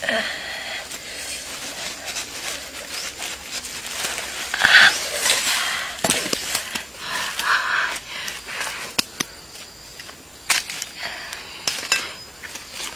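A knife blade and fingers scraping and raking through ash and charcoal lumps, with uneven short clicks and crunchy scrapes and the crackle of charred leaf wrapping.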